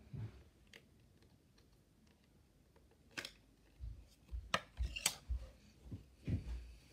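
Red slime being pulled out of a plastic tub and handled, with a few sharp clicks and pops and soft low thumps between about three and six and a half seconds in.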